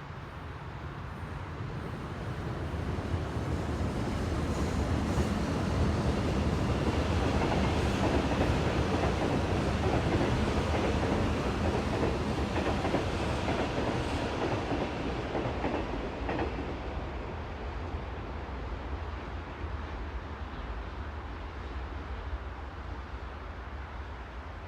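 A train passing by, its rumble and wheel clatter building to a peak about a third of the way in and then slowly fading.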